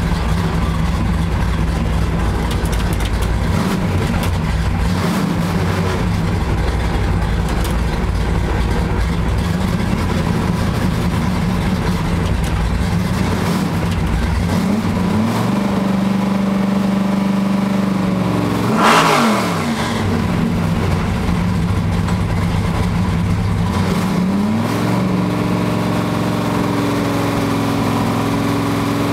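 Car engine heard from inside the cabin, pulling away at low speed; the engine note steps up and down a few times, with one sharp rev up and back down about two-thirds of the way through.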